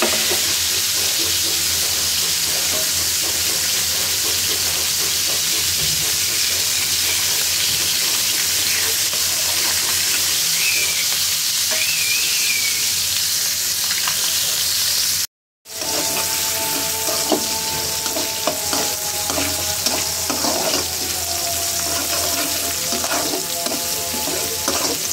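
Pangas fish pieces sizzling steadily in hot oil in a frying pan. After a brief break about 15 seconds in, sliced onions and green chillies sizzle in oil in an aluminium pan, the spatula scraping and knocking against the pan as they are stirred.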